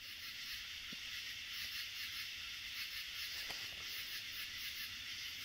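Steady night chorus of insects such as crickets, a dense continuous trill with a fast even pulsing in its highest part.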